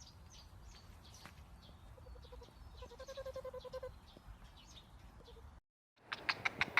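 Bleating: two short wavering calls, the second longer, about two and three seconds in, over faint ticks. After a brief dead break near the end comes a burst of loud sharp clicks.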